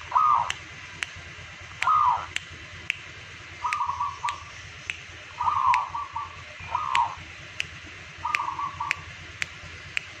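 Zebra dove (perkutut) cooing in a run of short, repeated phrases of bright staccato notes, a local bird in full song. A sharp tick repeats evenly about twice a second underneath.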